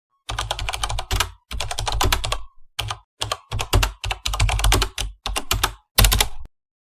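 Rapid keyboard typing, fast clicking keystrokes in about seven bursts with short pauses between them.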